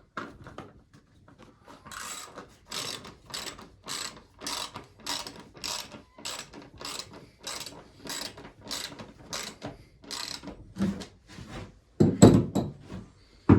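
Socket ratchet wrench clicking steadily, about two or three clicks a second, as bolts are turned in, then a louder knock and clatter near the end.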